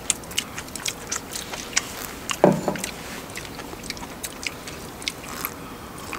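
People chewing food close to the microphone, with many small crisp clicks of biting and chewing. A short hum or grunt of a voice comes about two and a half seconds in.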